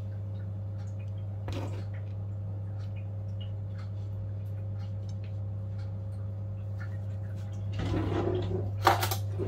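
A steady low hum with faint soft rustles, a little louder near the end.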